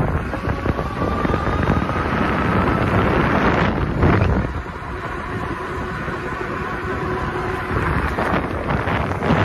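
AiLife XB20 1000W e-bike riding on a concrete path: wind buffets the microphone, with a strong gust about four seconds in. Under it, a faint whine rises in pitch over the first few seconds as the bike picks up speed.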